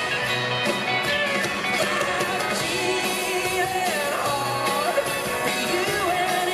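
Live country-rock band playing, with a male lead vocal sung into the microphone over the full band.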